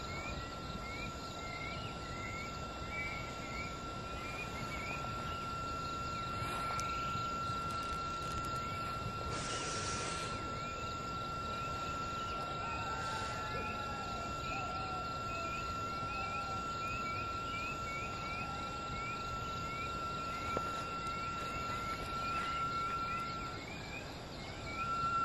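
Night insects and frogs calling: a steady high-pitched whine that stops near the end, with quick chirps repeating a few times a second. Underneath is a low rumble from glowing lava-dome rockfall on Mount Merapi, and a brief rushing sound comes about ten seconds in.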